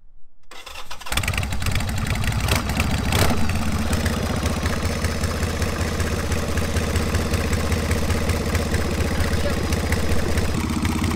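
Harley-Davidson Sportster V-twin engine idling steadily, from about a second in, with two sharp knocks a few seconds in.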